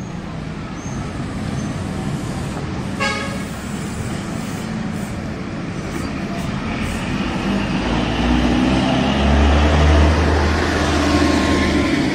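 City road traffic: a short, high car-horn toot about three seconds in, then a vehicle passing close, its low engine sound building to the loudest point near the end.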